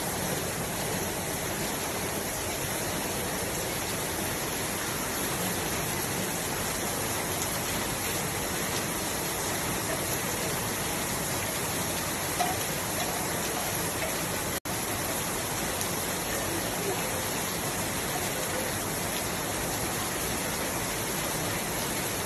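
A steady rushing hiss, even and without pitch or rhythm, broken by a momentary dropout about two-thirds of the way in.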